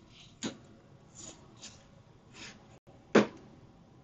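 Two sharp clicks of small tools being handled on a workbench, a light one about half a second in and a louder one a little past three seconds, with faint breathing between.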